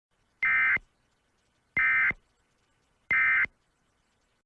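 Emergency Alert System end-of-message data signal: three short, identical bursts of warbling digital tones, each about a third of a second long and a little over a second apart, marking the end of the alert.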